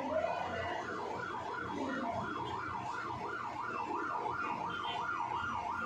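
Electronic siren sounding a fast warble, its pitch swinging up and down about three to four times a second without a break.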